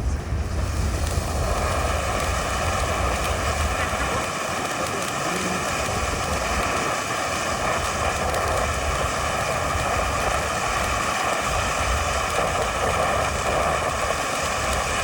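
Firework fountain spraying with a steady, loud hiss that holds at the same level throughout.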